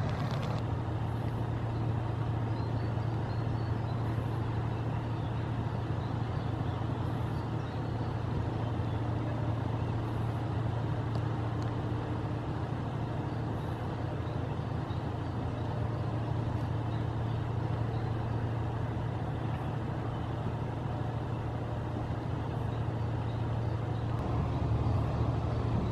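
Steady low engine drone with an even background hiss, unchanging throughout and a little louder near the end.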